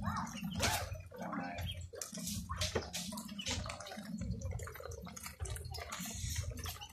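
A flock of young poultry feeding at a trough, with irregular sharp pecking clicks and wet, splashy dabbling sounds.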